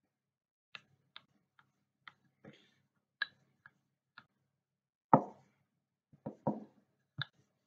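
Hands working a ball of shortcrust pastry on a floured worktop: a scatter of light taps and clicks, then louder knocks from about five seconds in as the pastry is pressed flat beside a wooden rolling pin.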